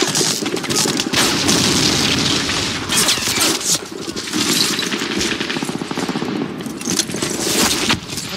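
Film battle soundtrack: continuous rapid machine-gun and rifle fire, with several louder blasts.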